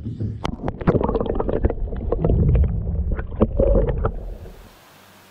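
Handheld camera knocking against the side of a small boat and plunging into the lake: repeated knocks and clicks over muffled splashing and gurgling water. About four seconds in it stops and gives way to a steady faint hiss.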